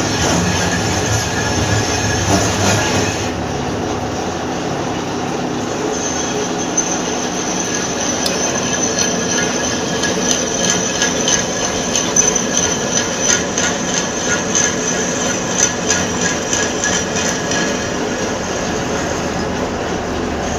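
Manual lathe running and cutting metal: a steady mechanical grinding noise, with a thin high metallic whine from the cutting tool that comes in about six seconds in and holds.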